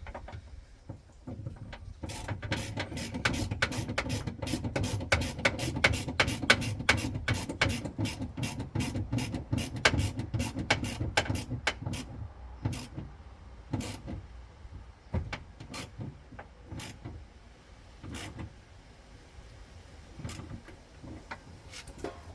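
Rapid mechanical ratchet-like clicking, about four clicks a second over a low rumble, for some ten seconds; it then thins to scattered single clicks.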